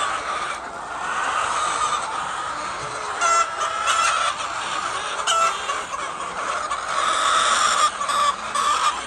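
A flock of hens clucking and calling in a continuous overlapping chatter, with a few louder, sharper calls standing out about three to five seconds in.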